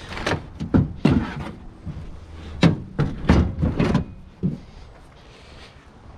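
A quick run of hard knocks and clunks of scrap items being handled and set down, about ten in the first four seconds or so.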